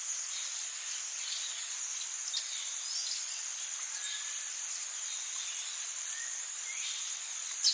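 Jungle ambience: a steady high-pitched insect chorus, with a few short bird chirps now and then, the loudest just before the end.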